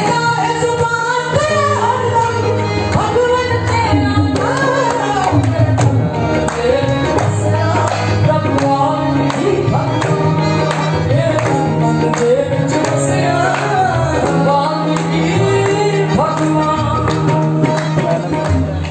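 Live devotional song in praise of Valmiki, sung by a woman through a microphone over a sound system. The sung melody bends and glides over steady, held low accompaniment notes.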